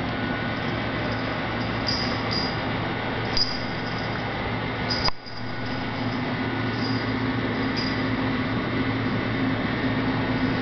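Steady machine hum with a low drone, with a few faint light clicks over it; the sound dips briefly about halfway through.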